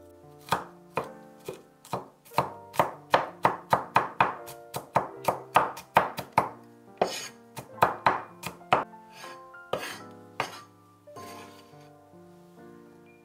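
Cleaver chopping garlic cloves on a wooden chopping board: a rapid run of sharp knocks, about three a second, that slows and stops after about ten seconds. Soft background music plays underneath.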